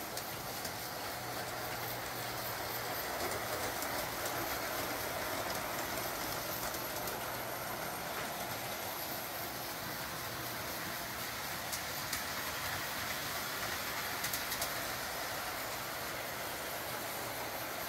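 Model trains running around a floor layout: a steady whir of motors and gearing with the wheels clicking over the rail joints, a low hum under it in the first half, and a few sharper clicks later on.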